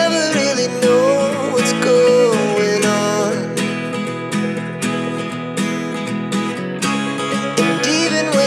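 Background music: a pop song with strummed acoustic guitar on a regular beat, a wavering melody line over it through the first three seconds.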